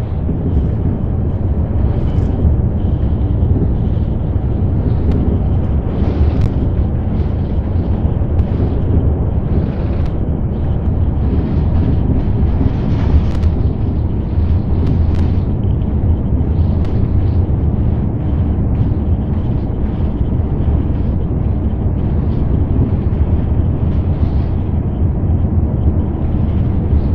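Steady low rumble of a city bus driving along, its engine and road noise heard from inside the passenger cabin.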